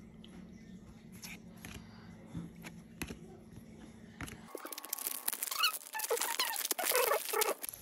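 A foil trading-card pack wrapper torn open and crinkled by hand, a loud, dense crinkling with short squeaky glides, starting about four and a half seconds in. Before it, the cards being flipped give a few soft clicks.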